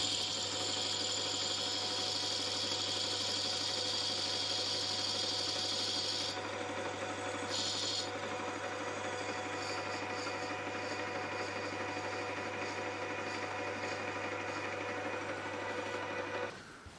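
Metal lathe running while a boring bar cuts the bore of a thin-walled brass bush: a steady cutting hiss over the hum of the lathe's motor and gearing. The hiss is strongest for the first six seconds, and the whole sound stops shortly before the end as the lathe is switched off.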